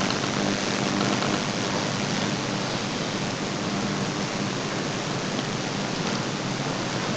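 Steady hiss with a faint low hum underneath, the background noise of the recording.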